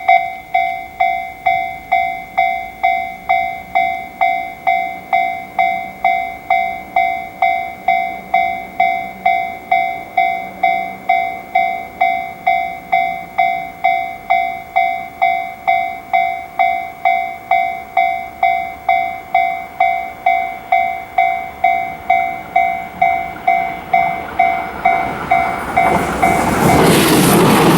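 Level-crossing warning bell ringing at an even rhythm, a little under two strokes a second. About 26 seconds in, an E353 series limited express train arrives at speed and its noise swamps the bell.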